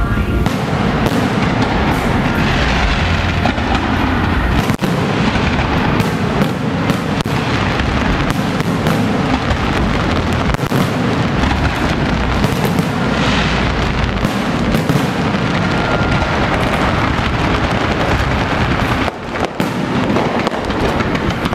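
Electronically fired aerial fireworks shells bursting overhead in a dense, continuous barrage of booms and crackling, thinning briefly about nineteen seconds in.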